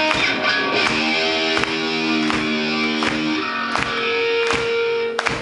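Live rock band playing the start of a song: electric guitar chords and held notes ringing over a steady beat of about three hits every two seconds.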